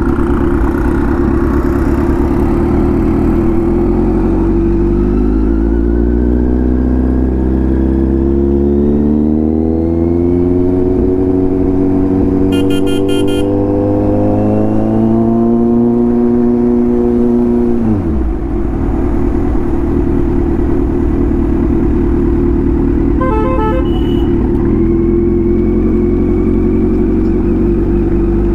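Kawasaki Z900's inline-four engine through an aftermarket exhaust while riding: its pitch climbs steadily for about twelve seconds under acceleration, drops sharply as the throttle closes about two-thirds in, then runs on at a steady lower note.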